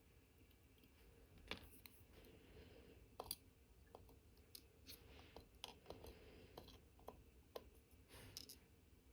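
Faint, irregular clicks and light taps of small metal watchmaker's tools against the parts of an Omega Cal.1109 watch movement during reassembly, over low room hum.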